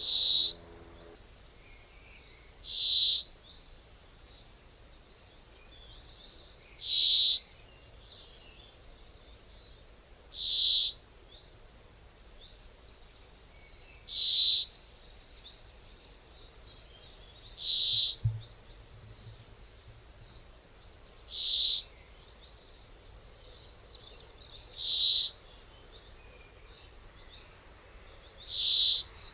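A bird's single high-pitched call note, repeated evenly about every three and a half seconds, nine times.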